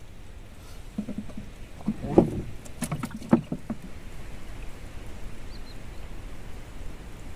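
A cluster of knocks and bumps on a small wooden boat, the loudest about two seconds in, over a steady background hiss.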